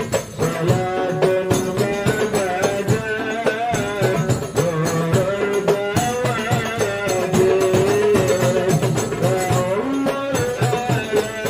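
Hadrah ensemble playing: hand-struck rebana frame drums and a floor drum beating a dense rhythm under a sung sholawat melody.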